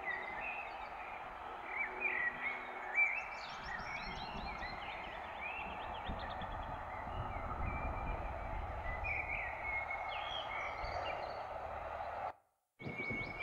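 Several songbirds singing and chirping over a steady outdoor hiss, with a low rumble swelling through the middle. The sound cuts out for half a second near the end.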